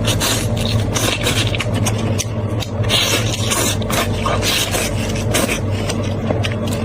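Close-up eating sounds of someone chewing and tearing at spicy sheep shank meat: many short, irregular clicks and crackles, over a steady low hum.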